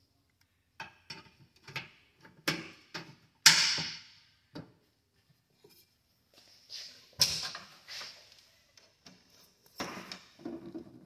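Handling noises on an Edison Diamond Disc phonograph cabinet: a run of separate clicks and knocks as the thick disc record and the reproducer are handled and the record lifted off the turntable. The loudest is a sharp knock about three and a half seconds in, another about seven seconds in, and softer rustling and knocking near the end as the lower record-storage compartment is reached into.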